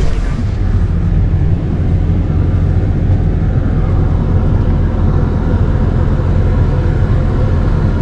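Case IH Puma tractor's diesel engine running steadily, a low hum heard inside the cab, while the tractor unrolls a hay bale.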